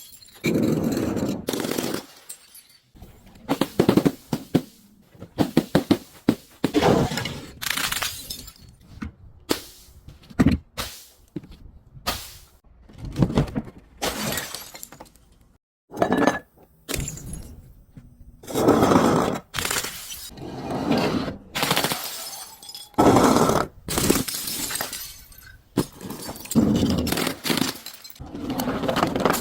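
Glass bottles and other brittle objects being smashed and crushed one after another: many separate crashes and crunches a second or two apart.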